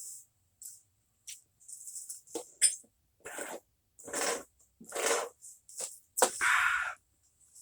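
Close-miked eating and food-handling noises: a run of short crackly rustles and breathy puffs, each under half a second, with silent gaps between.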